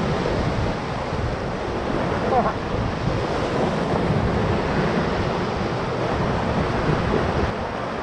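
Ocoee River whitewater rapids rushing steadily around a paddle raft, with some wind noise on the microphone.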